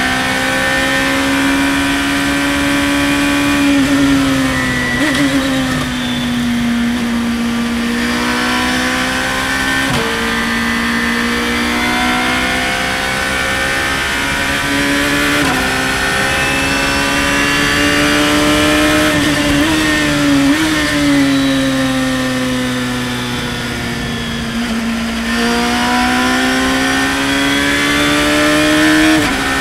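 Engine of a Radical open-cockpit race car at high revs, its pitch climbing under acceleration and sliding down as it slows for corners. Several quick gear changes make the pitch drop abruptly.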